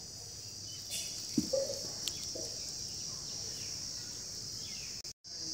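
Insects chirring steadily in a high, even band, with a few faint short knocks about a second in. The sound cuts out completely for an instant near the end.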